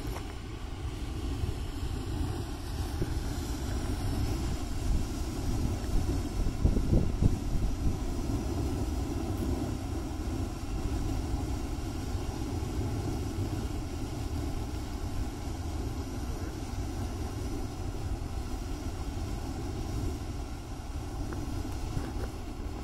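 Lone Star Geyser erupting: a steady rushing of water and steam jetting from its cone, with wind buffeting the microphone.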